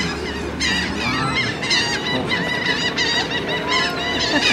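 A flock of gulls squawking, many short overlapping cries all through.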